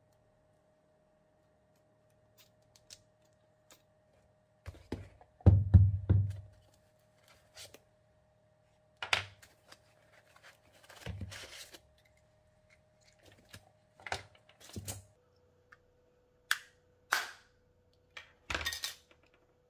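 Handling noises as a miniature metal V-twin model engine and its parts are unpacked from a foam-lined box: a heavy low thump about five and a half seconds in, then scattered knocks, clicks and rustles.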